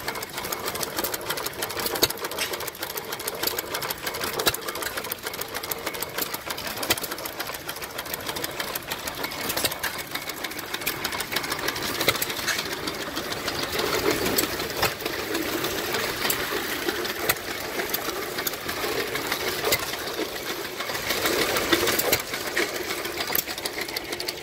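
Antique Domestic stationary gas engine running with its attached pump, a steady rapid mechanical clatter.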